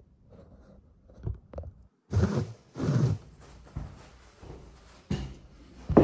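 Handling noises at a table: two loud dull thumps a couple of seconds in, a click, then a sharp knock near the end as a hand comes down on the tabletop.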